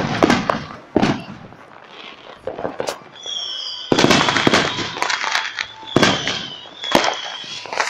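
Fireworks going off: a run of sharp bangs and crackling bursts, several seconds apart. A high whistling tone joins in from about three seconds in.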